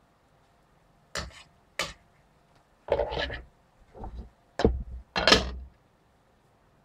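A string of separate kitchenware knocks and clatters on a frying pan, ending with the loudest two as a glass pan lid is set down and settles on the pan.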